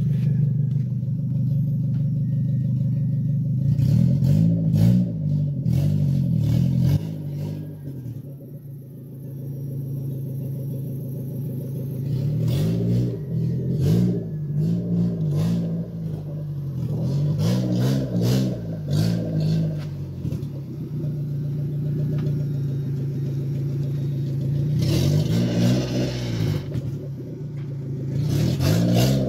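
Toyota Corona's engine while driving, a steady low drone that repeatedly revs up and drops back as the car accelerates through the gears, with some clatter.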